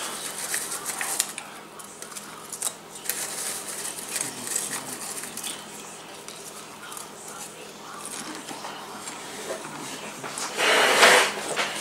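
Popcorn rustling and clicking in a plastic bowl as a hand picks through it, with light crunching while it is eaten. A short, louder scrape near the end.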